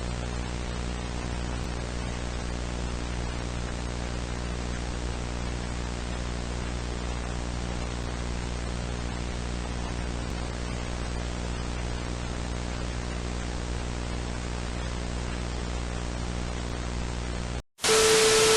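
Steady static hiss over a low electrical hum. Near the end it cuts out for a split second and returns as much louder static with a steady mid-pitched tone.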